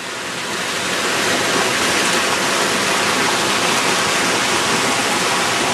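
Small mountain stream rushing and splashing over rocks and fallen logs, a steady close-up water noise that grows louder over about the first second.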